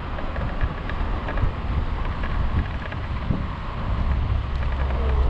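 Wind buffeting the microphone over the low, steady rumble of an Okai ES400A electric scooter rolling along asphalt at riding speed, with scattered small clicks and rattles.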